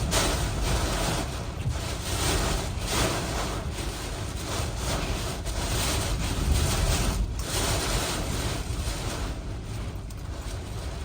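Hurricane wind gusting hard across the microphone: a continuous rushing noise with a heavy low rumble, swelling and easing every second or two.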